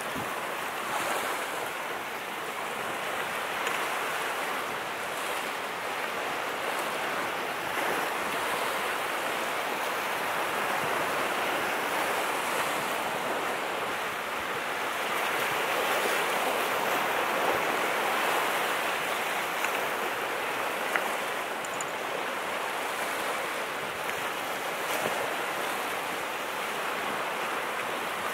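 Ocean surf washing onto the beach with some wind, a steady rushing that swells a little around the middle.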